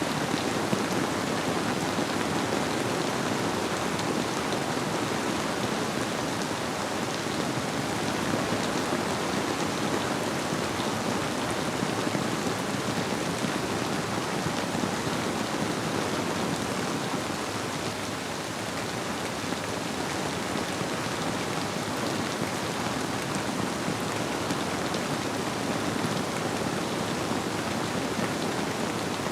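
Steady rain falling on surfaces, a dense even patter, with a gentle river flowing beneath it.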